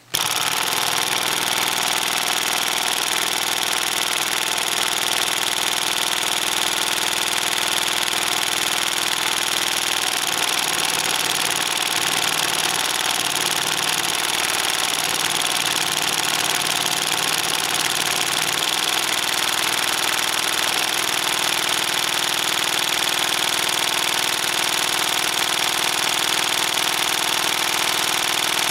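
Homemade inline-twin magnetic piston engine running: coils pull and push its two rare-earth magnet pistons, switched by an optical sensor and a relay, making a steady mechanical clicking clatter that starts abruptly. The engine is running at only half power.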